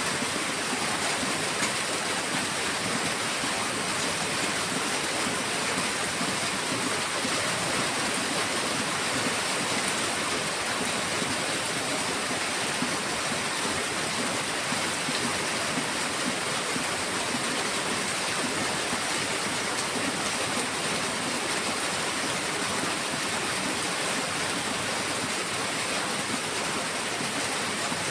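Heavy rain falling in a steady, even downpour, with no thunder or other events.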